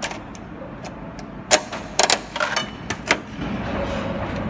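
Coin-operated bouncy-ball vending machine: a run of metallic clicks and clanks as its coin crank is turned. From about three and a half seconds in there is a steady rolling rumble, fitting a released rubber ball running down the machine's clear spiral track.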